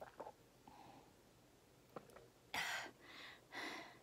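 A few faint sips and swallows from a mug, then two loud breaths about a second apart near the end.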